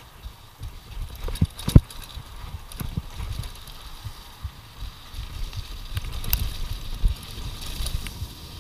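Mountain bike descending a rough dirt downhill trail: tyres rolling over the dirt with a low rumble and the bike rattling and knocking over bumps, with a sharp clack a little under two seconds in, the loudest sound.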